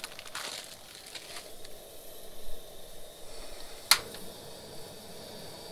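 Plastic sausage packaging crinkling as it is handled for about the first second and a half, then a single sharp click about four seconds in.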